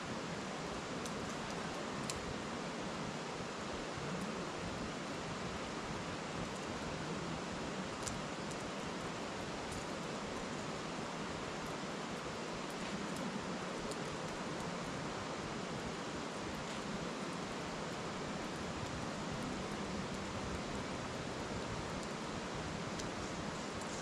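Steady rushing murmur of a shallow river, with a handful of faint, sharp crackles from split wood burning in a metal fire bowl.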